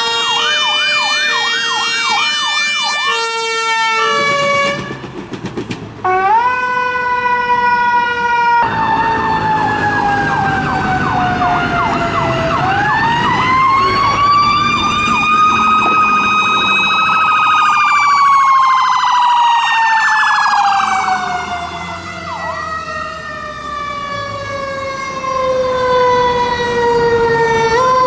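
Fire engine sirens on an emergency run. First comes a fast repeating yelp over steady tones. Then a long wail rises, holds high and slowly sinks through the last ten seconds.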